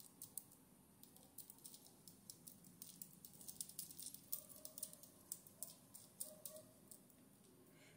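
Faint, irregular ticking and slick rubbing of fingers working facial oil into the skin on the back of a hand.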